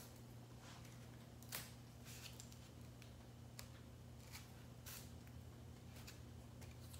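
Faint scratching and a few sharp ticks of a craft knife cutting through foam board, spread over several seconds, with a faint steady hum underneath.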